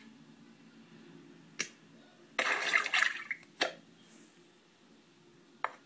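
Cartoon sound effects from a children's storybook app: a short splashy rush of noise about halfway through, with single sharp clicks before it, just after it and near the end.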